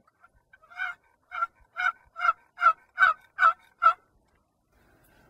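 Turkey yelping: a run of eight short, evenly spaced yelps, about two and a half a second, growing louder over the first few and stopping about four seconds in.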